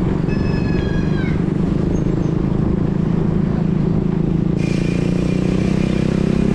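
Road traffic: a steady low rumble of vehicles. Near the start a short high pitched tone sounds and bends downward as it ends, and about four and a half seconds in a thin steady whine and hiss come in.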